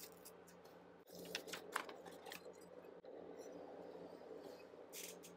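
Faint handling sounds of adhesive-backed felt and an aluminum plate on a wooden workbench: a few soft ticks and scrapes about a second in, and another brief rustle near the end.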